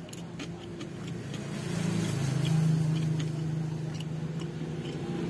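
A motor vehicle's engine running, a steady low hum that grows louder about two seconds in and then holds, with a few light clicks.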